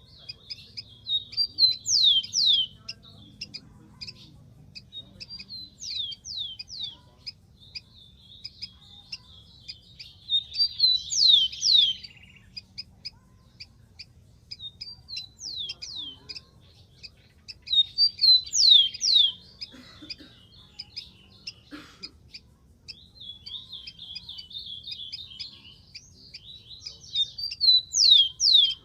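Rufous-collared sparrow singing: repeated short songs of quick high notes that end in two or three steep down-slurred whistles, a new song every few seconds, over a faint low hum.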